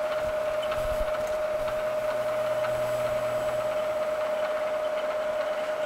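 Bridgeport EZ Trak DX CNC mill's X-axis servo driving the table in manual jog mode: a steady mechanical whine, with a lower hum for about three seconds while the table travels.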